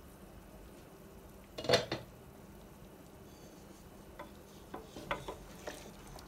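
Wooden spatula stirring chunks of beef curry in a large stainless steel pot: one loud knock against the pot about two seconds in, then a few light taps and clicks as the meat is turned over.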